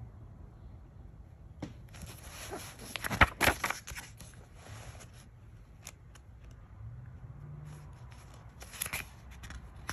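Pages of a paper book being turned by hand: a rustle about two seconds in with a couple of sharp snaps of the page near three seconds, and a shorter rustle near the end.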